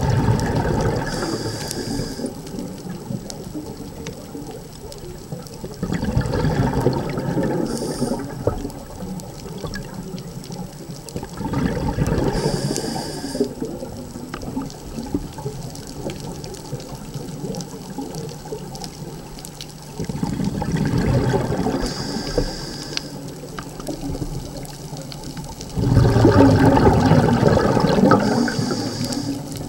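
A scuba diver breathing through a regulator, heard underwater, five breaths about six seconds apart. Each exhalation is a rush of bubbles lasting a couple of seconds and is paired with a short high hiss from the regulator as the next breath is drawn.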